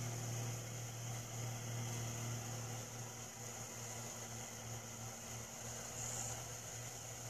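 Steady low machine hum with an even hiss above it, like a fan or small motor running.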